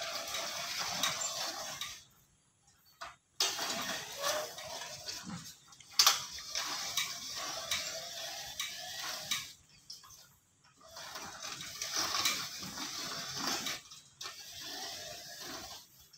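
Hand-cranked bead roller turning, with a thin sheet-metal band running through its rollers. It comes in three runs broken by short pauses, with a couple of sharp clanks, the loudest about six seconds in.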